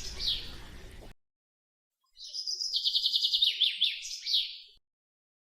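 A songbird singing: a fast trill of repeated high notes followed by a few down-slurred notes. The song cuts off abruptly about a second in, and after a second of dead silence the same phrase comes again and stops short once more.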